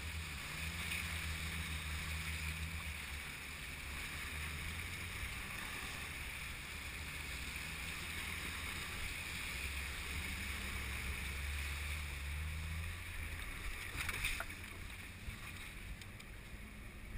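Jeep Wrangler JK's 3.8-litre V6 running steadily at low revs, heard from inside the cab, as it wades through river water and climbs out onto the bank, with water rushing against the body. A few sharp knocks about fourteen seconds in.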